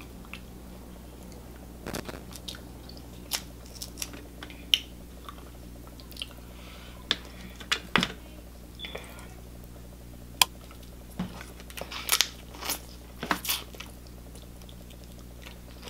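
Close-up eating sounds: crab leg shells snapping and clicking as the meat is pulled out, with chewing in between. Sharp, irregular clicks are scattered throughout and crowd together near the end.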